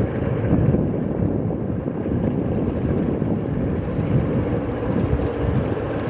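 Diesel locomotive engine running as a passenger train approaches, a steady low rumble, with wind buffeting the microphone.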